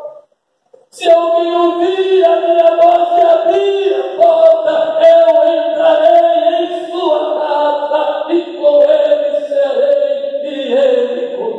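Worship singing into a microphone: slow, held sung notes that move step by step. It drops out briefly just after the start, then carries on.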